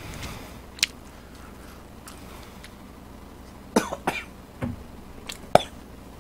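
A man coughing and clearing his throat, several sharp coughs bunched together from about four seconds in, as food catches in his throat while eating. A single click sounds just before a second in.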